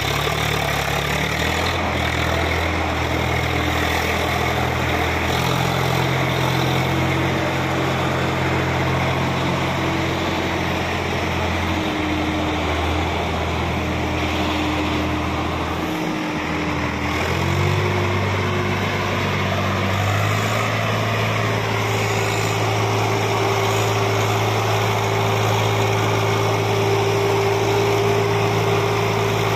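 Swaraj 744 tractor's three-cylinder diesel engine running under load as it pulls a fully loaded trolley along a dirt track. The engine pitch shifts several times, then rises about two-thirds of the way through and holds steady higher.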